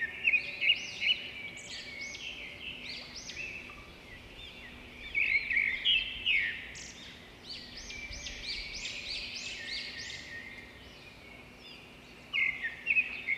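Several birds chirping in quick, overlapping high calls, thinning out briefly twice.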